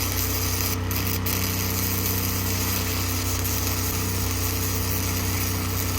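Stick welding arc crackling and hissing steadily as a root pass is run with a 6011 rod, over the steady hum of the engine-driven welder running under load.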